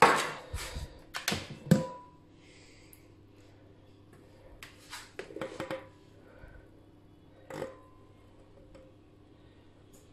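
Several sharp knocks and clinks of a stainless-steel mixing bowl being taken off a stand mixer in the first two seconds. After that it is mostly quiet while thick cake batter pours from the bowl into a square baking tin, with a few soft sounds and one more knock about seven and a half seconds in.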